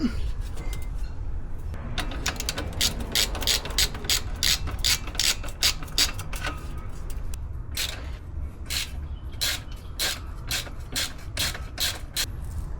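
Socket ratchet wrench clicking in quick runs of strokes, over a steady low rumble.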